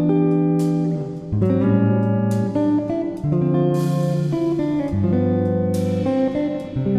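Background music led by guitar, its chords changing about every second and a half.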